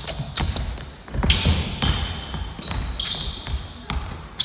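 Basketball dribbled on a wooden gym floor in irregular thuds, with short high-pitched squeaks from players' sneakers as they cut and defend.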